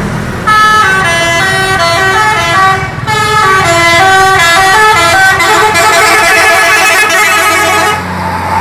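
Tour bus's musical multi-tone "telolet" air horn playing a melody of stepped notes, starting about half a second in and stopping near the end. The bus's engine hum then carries on as it passes close by.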